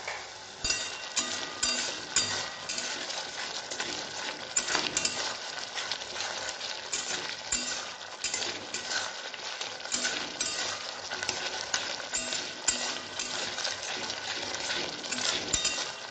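Flat metal spatula stirring and scraping a watery tomato-and-spice masala in a metal kadai, with repeated scrapes over a steady sizzle. The masala is being cooked down (kosha) with a little water added to keep it from sticking to the pan.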